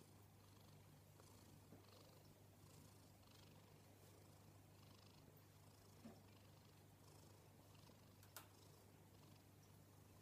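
Faint, steady snoring of a pet asleep on a lap, with two small clicks about six seconds in and again a couple of seconds later.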